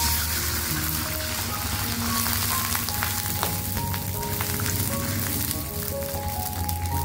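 Water poured into a wok of hot oil, sizzling with a steady hiss as it meets the oil. Background music plays underneath.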